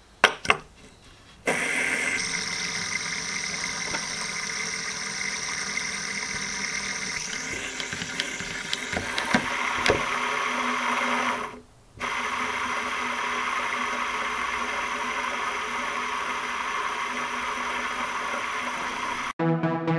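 Plastic fidget spinner flicked with a couple of sharp clicks, then its bearing whirring steadily as it spins clamped by its centre cap. The whirr drops out briefly about halfway through, resumes, and stops abruptly near the end.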